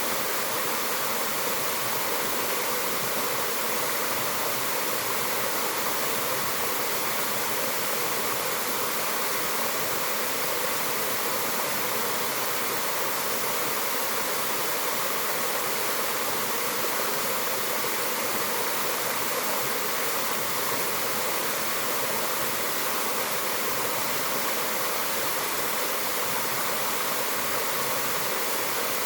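Waterfall splashing steadily, a constant hiss of falling water with no change in level.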